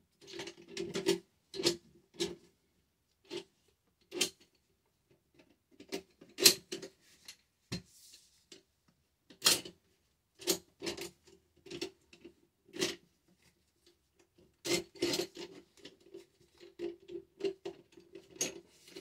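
Steel parts of a Remington 870 Tac-14 pump shotgun clicking and scraping as they are pushed back into the receiver's rails during reassembly. The clicks come irregularly, a few sharp ones standing out, and bunch together toward the end.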